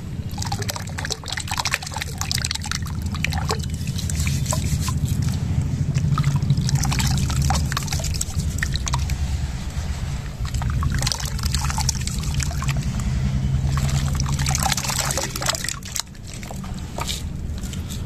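Hands scooping, squeezing and swishing crumbled sand-and-cement chunks in a basin of water, with water sloshing, pouring and dribbling back off the hands in irregular splashes. A steady low rumble runs underneath, and the splashing thins out near the end.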